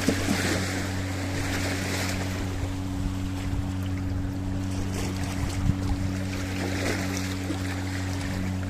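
Sea waves washing over a rocky shore, swelling near the start and again near the end, over a steady low hum.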